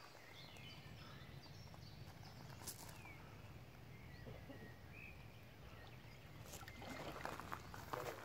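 Faint outdoor lakeside ambience: scattered short bird chirps over a low steady rumble, with a flurry of short sharp sounds near the end.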